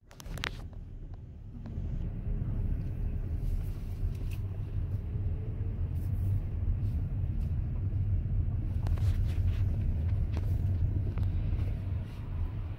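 Car driving: a low, steady rumble of engine and road noise that builds over the first two seconds and eases off near the end.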